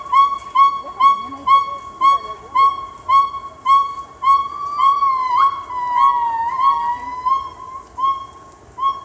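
Gibbons singing: a fast series of short, high hoots at about two to three a second, with longer sliding, wavering notes overlapping the series about five to seven seconds in.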